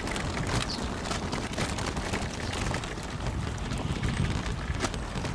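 Wind rumbling on the microphone and tyre noise from a small open vehicle rolling slowly over a rough road, with small rattles.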